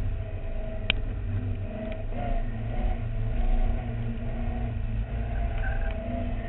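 Caterham Seven sports car driving on track, its engine running at a fairly even pitch with slight rises and falls over a heavy low rumble. A single sharp click about a second in.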